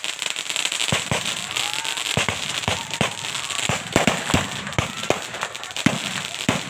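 Firecrackers hung beneath a paper hot-air balloon going off in the air: a rapid, irregular series of sharp pops over a steady crackling hiss.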